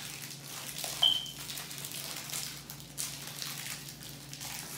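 Plastic wrapper of a pack of sliced cheese crinkling as it is pulled open by hand, in irregular crackles with a sharper one about a second in.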